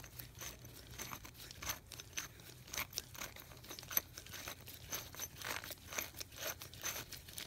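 Gloved hands unscrewing the rusty, stuck threaded gear housing of a 1980s Rodac air drill: faint, irregular crackles and clicks of the rusted threads turning and the rubber gloves gripping the metal.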